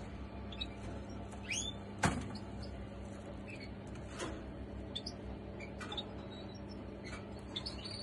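Cage finches chirping: scattered short, high chirps, some gliding up or down in pitch. A sharp click about two seconds in is the loudest sound, and a steady low hum runs underneath.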